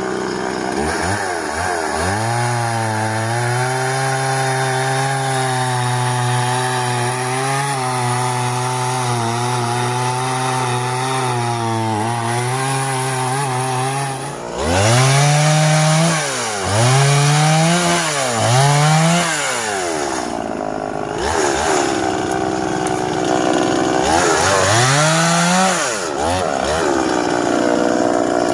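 Stihl two-stroke chainsaw cutting wood, running at high revs for a long stretch with small dips under load. In the second half it is revved up and let back down several times in quick succession.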